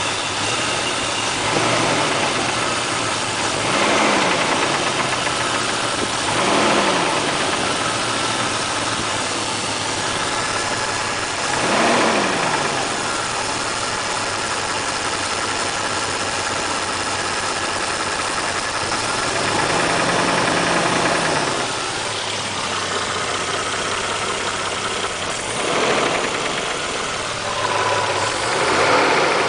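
Toyota 1JZ-GTE twin-turbo inline-six idling, blipped briefly about seven times, with a knock that the owner takes for a rod knock, suspected to come from low oil pressure at start-up caused by a weak original oil pump.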